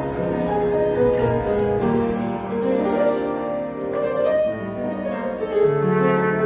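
Instrumental music led by piano, with long held notes and chords changing every second or so.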